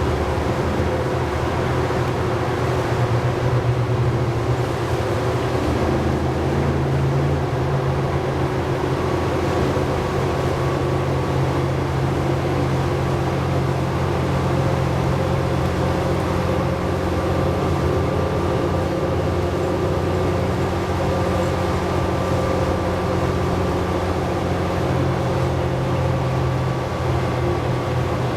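Cummins ISL9 diesel engine and Allison B500R transmission of a New Flyer D60LFR articulated bus, heard from inside the bus as it drives along, running steadily with a few small shifts in pitch.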